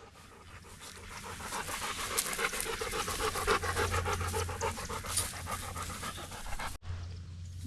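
A dog panting fast and rhythmically, growing louder over the first couple of seconds.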